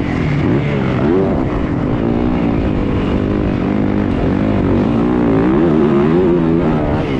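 Yamaha motocross bike's engine heard close from onboard, revving up and down repeatedly as the rider works the throttle and gears around the track, with rushing noise over it.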